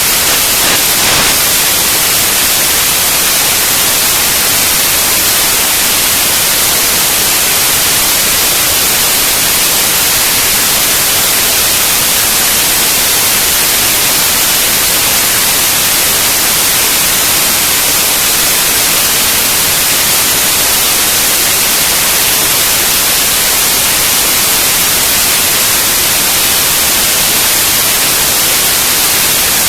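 Steady, loud static-like hiss, even and unchanging, with no engine note or voices standing out.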